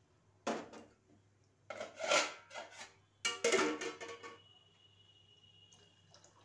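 A metal spoon knocking and scraping against stainless-steel pots, three clattering strikes that ring on. The last strike leaves a thin ring that lingers for about two seconds.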